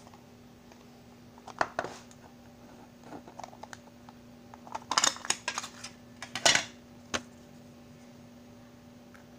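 Hard plastic cassette and clear cassette case clicking and rattling as they are handled and the case is opened: a pair of clicks about a second and a half in, a cluster of clatter around five seconds, a loud clack at about six and a half seconds and one last click just after seven. A steady low hum runs underneath.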